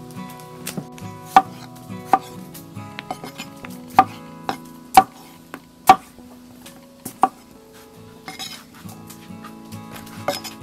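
Six sharp kitchen knocks, each with a brief metallic ring, spaced about a second apart, as a metal utensil strikes in food preparation. Quiet background music runs underneath.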